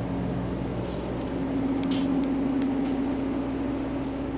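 Steady low machine hum of running equipment in an equipment-packed room, with a drone that swells briefly in the middle and a few faint clicks around two seconds in.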